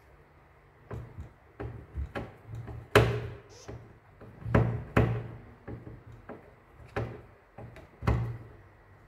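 A screwdriver driving a screw into a bread maker's plastic base, with irregular clicks and knocks of the tool and hands against the hollow plastic housing. The loudest knocks come about three, five and eight seconds in.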